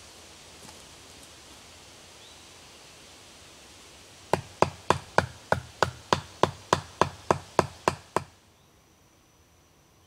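A tarp stake being hammered into the ground: about fourteen sharp blows at roughly three a second, then they stop.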